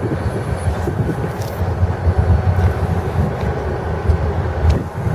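Wheeling & Lake Erie freight train rumbling steadily as it moves off.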